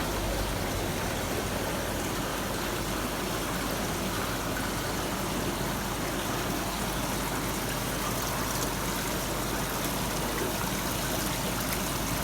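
A steady, even rushing noise with a low rumble beneath it, unchanging throughout.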